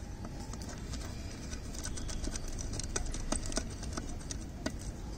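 Screwdriver working a screw loose on an electric iron's thermostat bracket: a run of small, irregular metallic clicks and ticks over a low steady background rumble.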